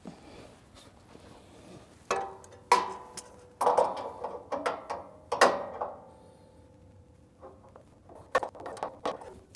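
Metal clanks on the Grizzly G0609 jointer's steel base as the motor compartment is worked open, several sharp knocks with a ringing tone that fades about two seconds after the loudest one. Near the end, a run of quick light metallic clicks.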